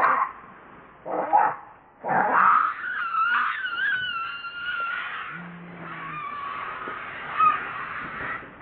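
Baby macaque screaming in distress: two short harsh cries, then a long wavering scream from about two seconds in that fades over the following seconds.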